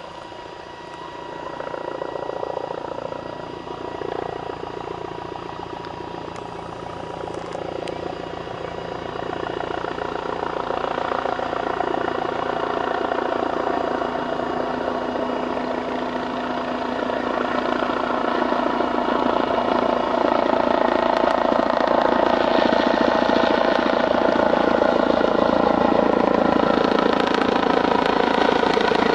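Bell 429 GlobalRanger twin-turbine helicopter on approach, its rotor beat and turbine sound growing steadily louder as it closes in, then holding loud for the last several seconds.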